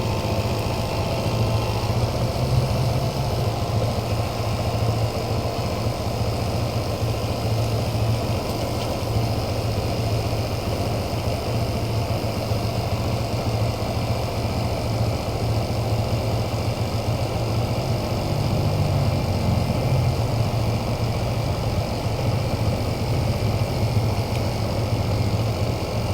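A steady mechanical hum, like a small motor or engine running at idle, holding an even pitch throughout with a slight lift near two-thirds of the way through.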